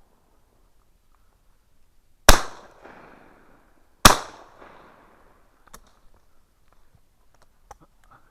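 Two shots from a 12-gauge side-by-side double-barrel shotgun, a Gebrüder Merkel Suhl, about two seconds apart, each trailing off in a rolling echo. A few faint clicks and knocks follow.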